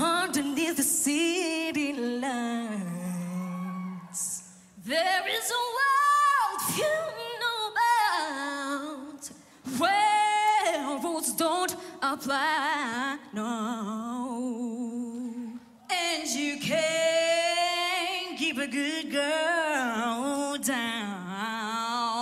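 Female voices singing a cappella in long phrases, with wavering vibrato on held notes and quick runs. The singing starts abruptly and breaks off briefly between phrases.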